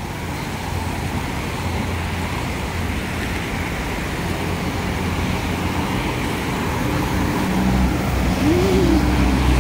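Road traffic noise: a vehicle engine running with a steady low hum under a rushing noise, growing gradually louder.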